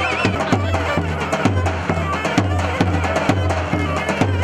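Davul bass drum beating a steady halay rhythm, about two deep strokes a second with thin-stick clicks between, under the shrill melody of a zurna: traditional Turkish halay dance music played live.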